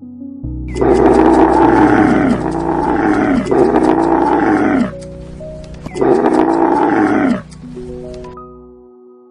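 Lion roaring: four long roars, each falling in pitch, the last after a short pause, over background music with steady held notes.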